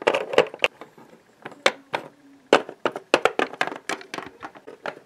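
Plastic Littlest Pet Shop toy figure tapped along a hard dollhouse floor as footsteps: a run of quick, irregular clicks.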